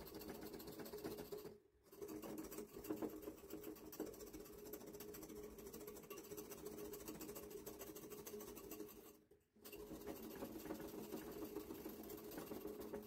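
Small wire hand whisk beating instant coffee, sugar and water in a ceramic mug: a fast, steady rattle of the tines against the mug, stopping briefly about two seconds in and again about nine seconds in. The mixture is being whipped up toward a foam for whipped coffee.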